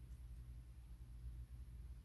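Near silence: a low, steady room hum with no distinct events.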